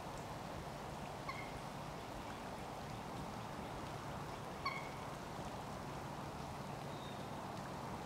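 Steady outdoor background hiss with a low hum, broken by two short, high chirping calls, one about a second in and a louder one just under five seconds in.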